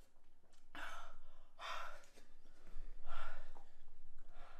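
Heavy breathing and sighs, about four hard breaths out through the mouth, from someone holding a chili-extract lollipop on the tongue: a reaction to the burn of the capsaicin.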